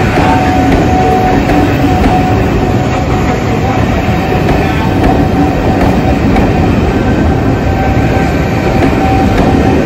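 Passenger carriages of a steam-hauled train rolling steadily past close by, a loud rumble of wheels on the rails with a clickety-clack over the joints and a steady thin whine above it.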